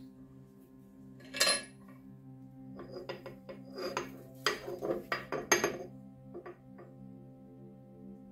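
Metal clinks and scrapes as a drill-press machine vise is loosened and a freshly drilled metal plate is lifted out among loose metal chips: one sharp clink about a second and a half in, then a cluster of clinks and rattles from about three to six seconds. A steady soft drone of background music underneath.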